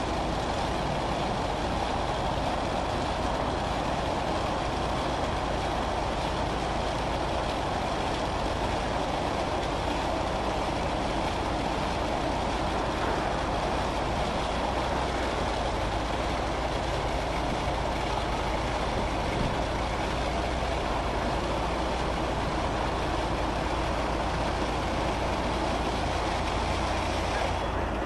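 Automatic bus wash running: vertical rotating brushes scrubbing along a minibus's body with water spraying, a steady rushing wash noise over a low machine rumble. The hiss thins suddenly near the end.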